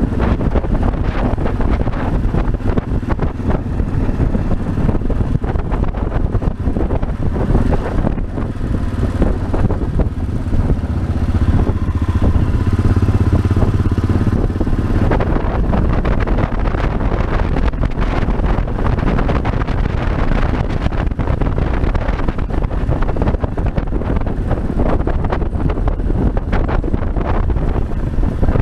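Yamaha Ténéré 600's single-cylinder engine running as the motorcycle is ridden through traffic, with wind noise on the bike-mounted camera microphone.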